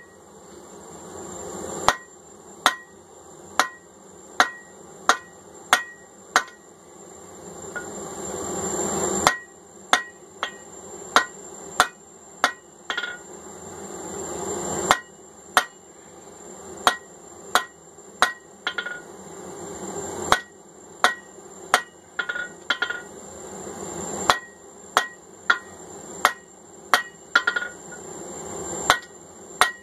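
Hand hammer striking hot steel on an anvil, about one and a half blows a second in runs of several blows with short pauses, each blow leaving a short metallic ring: drawing out the punch end over the anvil's edge. A steady hiss runs underneath.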